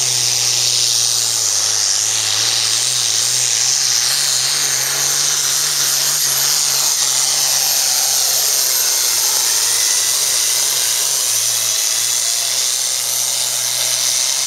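Hot farm class pulling tractor's diesel engine running at full throttle under load as it drags the sled, with a high, steady whine above the engine note. The engine pitch wavers up and down through the middle of the pull.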